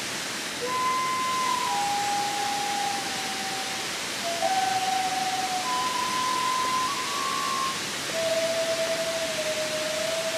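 Two shakuhachi bamboo flutes playing a honkyoku in unison: about five long, held notes, each a single steady tone that bends or steps at its end, with short breaths between them. Underneath runs the steady rush of a waterfall.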